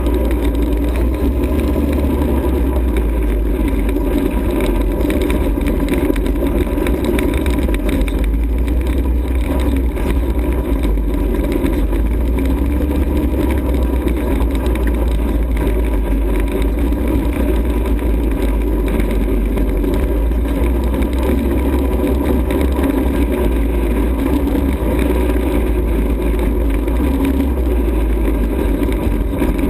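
ATV engine running steadily and loud, holding an even pace with no marked revving or stops.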